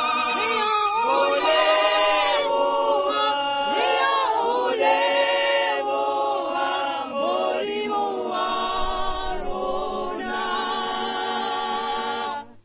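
Choir singing, several voices in harmony, cutting off suddenly near the end.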